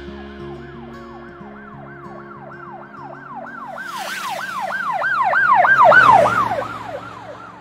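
Police car siren in a fast yelping wail, about three rises and falls a second. It grows louder, peaks about six seconds in, then fades away as if passing by.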